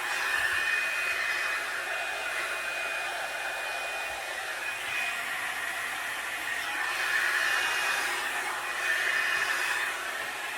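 Revlon One-Step hot-air dryer brush running steadily: the fan's whoosh with a thin whistle, the level swelling slightly at times as the brush is moved through the hair.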